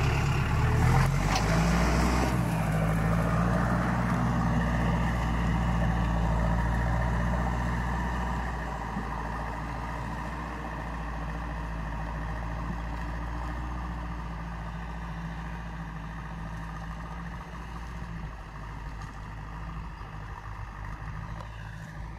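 Farm tractor's diesel engine running steadily as it pulls a disc plough through the field, with a brief clatter about a second in; the engine grows fainter about eight seconds in as the tractor moves away.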